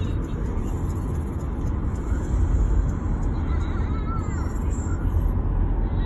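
Steady low rumble of a car driving along a road, heard from inside the cabin.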